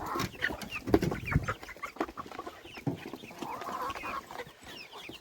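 Chickens and turkeys clucking and peeping in many short chirping calls as they crowd in to feed, with a few soft knocks.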